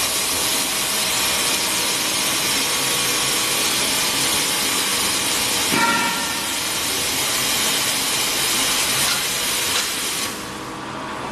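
Pneumatic piston filling and capping machine running, with a steady hiss of compressed air. A brief squeak comes about six seconds in, and the hiss drops away a little after ten seconds.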